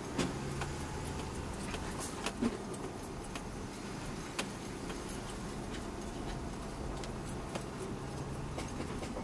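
Volvo VM truck heard from inside its cab on a rough dirt road: a steady engine hum under frequent small rattles and knocks from the cab and its loose fittings.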